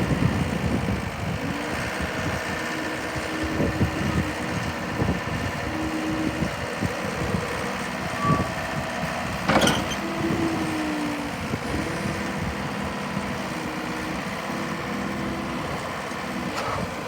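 John Deere 323 skid steer's diesel engine running with a low, uneven rumble. A steady hum comes and goes over it, and there is a single sharp click near the middle.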